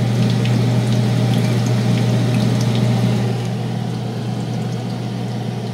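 Chicken pieces frying in hot oil in a pan: a steady sizzle with small crackling pops, over a constant low hum.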